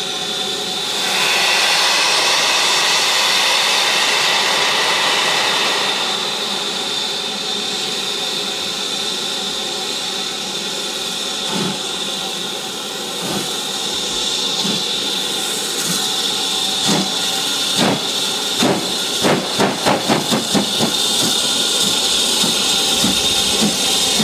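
BR Standard Class 4MT 2-6-0 steam locomotive starting a train. First comes a loud hiss of steam. From about halfway the exhaust beats begin, slow at first and quickening to two or three a second, with the cylinder drain cocks hissing.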